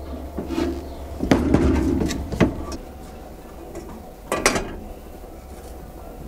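Metal workshop clatter: several sharp clanks and knocks as the clamps of a knife lead-setting machine are handled, then a ladle knocking against a small pot of melted lead on a gas ring about four and a half seconds in, over a steady low hum.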